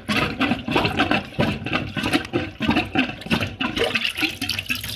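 Rubber cup plunger pumped quickly and repeatedly over a blocked stainless steel kitchen sink drain, with water sloshing and splashing in a series of strokes. The pushes drive air and water down the pipe to force the blockage through.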